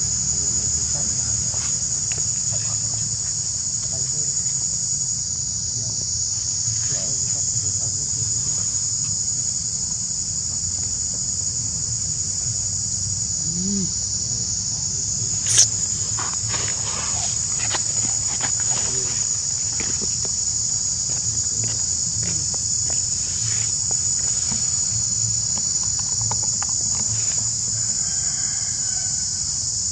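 Steady, high-pitched chirring of an insect chorus, with one sharp click about halfway through.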